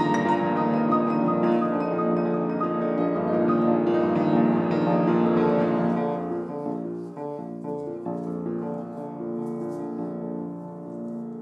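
Improvised piano for four hands: dense, ringing piano chords and runs that thin out and grow quieter about halfway through, fading toward the end.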